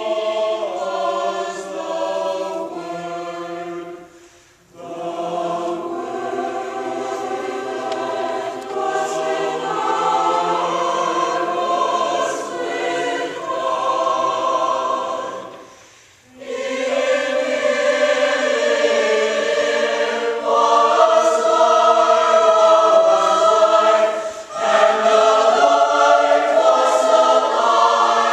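Christmas choir singing together in sustained harmony, with two short pauses for breath about four and sixteen seconds in.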